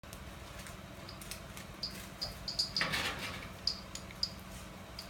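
Short high-pitched chirps repeating irregularly, at times several a second, over a low steady hum. A brief rushing noise comes about three seconds in.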